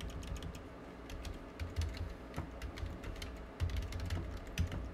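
Typing on a computer keyboard: an irregular run of key clicks, with a few heavier, duller thuds among them.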